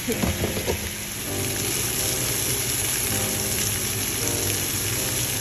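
Chicken pieces frying in hot oil in a pan, browning with a steady sizzle.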